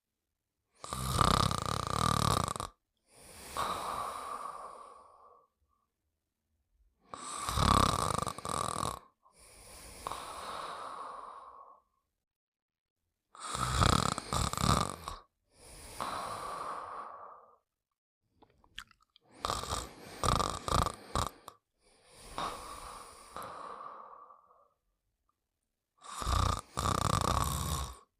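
A cartoon character snoring in a steady cycle about every six seconds, five times. Each cycle is a loud, rasping snore on the in-breath followed by a softer out-breath. The fourth snore, about two-thirds of the way in, comes in short, choppy pieces.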